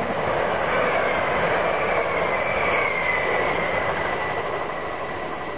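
A Gatwick Express Class 460 electric multiple unit passes at speed: wheel and rail noise with a high electric whine that drops slightly in pitch and then holds steady, fading over the last couple of seconds as the train draws away.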